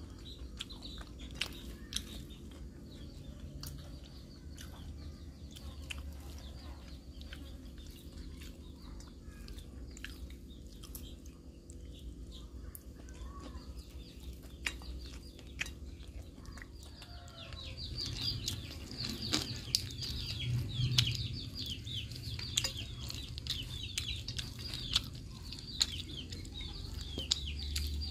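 Close-up eating sounds, chewing with short sharp lip-smacking clicks, over birds chirping in rapid runs of short falling notes. The chirping grows louder about two-thirds in.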